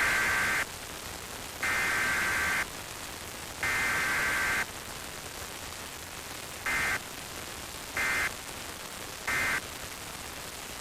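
Emergency Alert System SAME data bursts, a harsh two-tone digital screech, over steady radio static. Three roughly one-second header bursts about a second apart are followed by three short end-of-message bursts with no voice message between them: a Required Weekly Test sent as data only.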